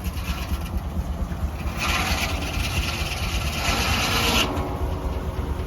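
Sawmill blade cutting through a log: a rasping cut that grows loud about two seconds in and stops abruptly a couple of seconds later. A steady low rumble from the belt-driven steam traction engine runs underneath.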